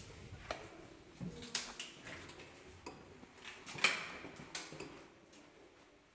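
A series of irregular light knocks and clicks, about nine in all, the loudest about four seconds in, fading toward the end.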